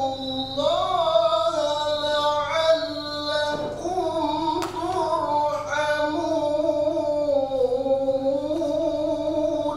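A man reciting the Qur'an in melodic tilawah style, drawing out long ornamented notes through a microphone, with a brief pause for breath about three and a half seconds in.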